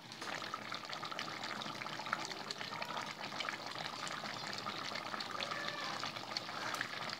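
Chicken tikka masala gravy simmering in a wide pot: a steady, even bubbling crackle.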